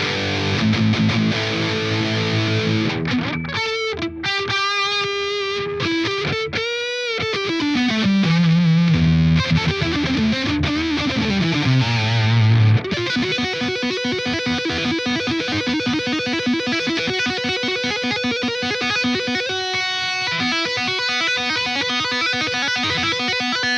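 Epiphone Explorer electric guitar played through a distorted amp-simulator plugin. Chords first, then a lead line with bent notes and vibrato that steps down, then fast repeated picking for the last ten seconds or so.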